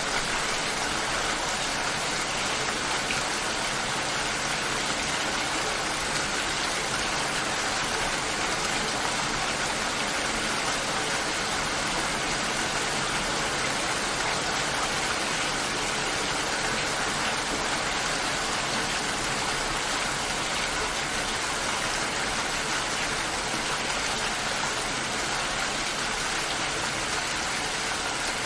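Steady rainfall, an even hiss with no distinct drops or other events standing out.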